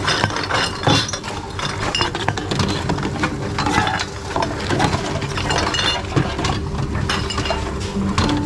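Reverse vending machines taking in glass bottles and drink cans: frequent clinks and clatters of glass and metal over the steady hum of the machines' mechanisms.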